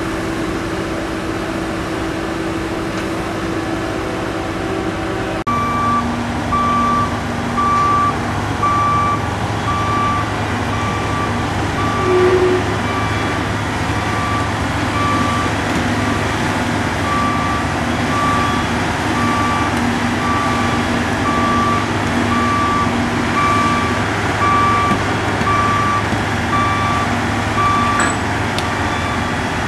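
Heavy construction machinery running with a steady low engine drone. After a sudden cut about five seconds in, a vehicle's reversing alarm beeps about once a second over the engine noise.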